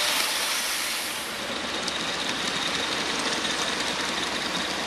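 45 mm gauge live-steam model train running past on its track: a steady hiss with light clicking from the wheels.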